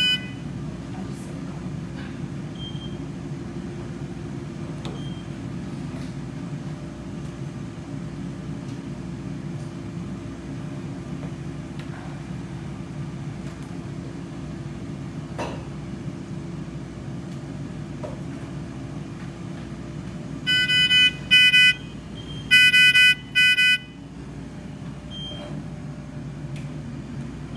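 Steady low hum of running equipment, and about three-quarters through a patient monitor alarm sounding: two pairs of high electronic beeps, each a longer beep followed by a shorter one.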